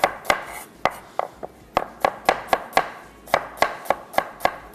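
Kitchen knife slicing an onion on a cutting board: sharp, regular knocks about three to four a second, with a couple of brief pauses.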